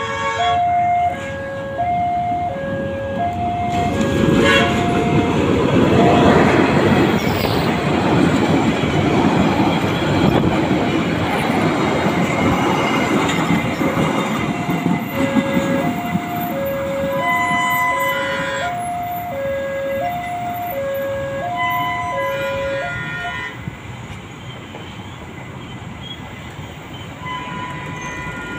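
A freight train of flat wagons and tank wagons passes over the rails with a heavy rumble and clatter, loudest a few seconds in, then fades. The level crossing's electronic alarm beeps in an alternating high-low pair of tones through the opening seconds and again from about halfway until near the end.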